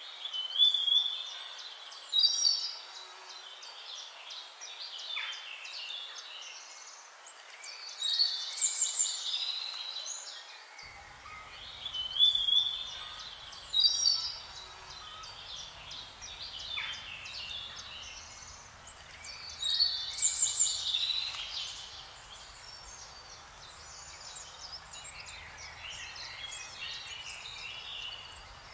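Oriental magpie-robin singing: four loud bouts of varied whistled phrases several seconds apart, with softer chirping in between.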